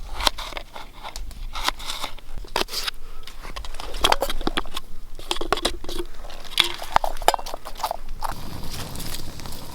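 A knife cutting raw potatoes: a run of irregular crunching cuts and knocks. Near the end the cutting gives way to a steadier low hiss.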